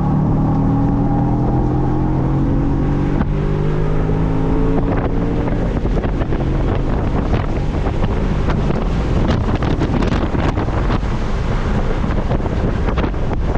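Audi B7 RS4's V8 engine pulling with its note rising slowly, then fading out about two-thirds of the way through. Heavy wind rush on the microphone throughout, buffeting harder once the engine drops away.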